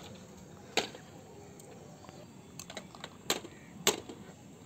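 Small plastic toys being handled, with about four sharp, irregularly spaced clicks and clacks as pieces knock together or are set down on a hard surface.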